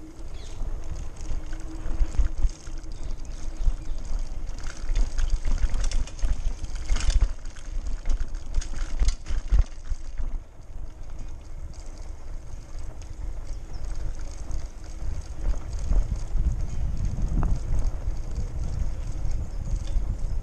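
Wind rumbling on the camera microphone on a moving Lime hire bike. The bike and its wire front basket rattle and clatter over the paved path, most busily in the first half.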